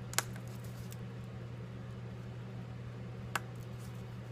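Two sharp small clicks about three seconds apart from reassembling an iPhone 5S, its display cable connectors being pressed back onto the logic board, over a steady low hum.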